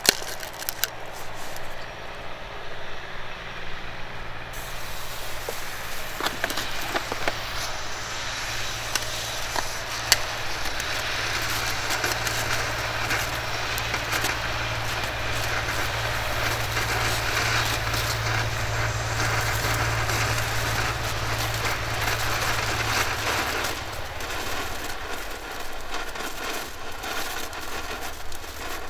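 A small category 1 consumer firework burning, a steady hissing spray with scattered crackles that grows stronger about ten seconds in and dies down a few seconds before the end.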